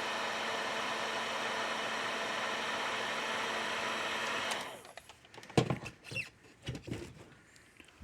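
Heat gun running steadily as it shrinks heat-shrink tubing onto a wire, switched off about four and a half seconds in, followed by a few light clicks and knocks of handling.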